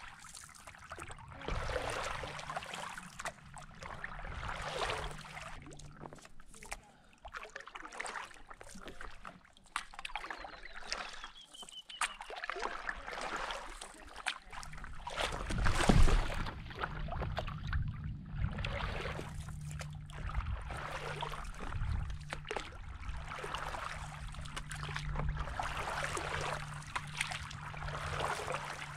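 Paddle strokes from a stand-up paddleboard: the blade dipping and pulling through calm lake water, splashing and dripping in a repeating rhythm, about one stroke every one and a half to two seconds. About halfway through there is one sharp, loud knock.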